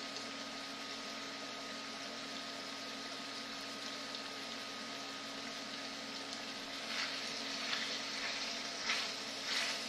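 Diced chicken sizzling steadily as it browns in a stainless skillet over high heat on an induction burner, with a steady hum underneath. From about seven seconds in, a plastic spoon stirs the pieces, scraping the pan a few times.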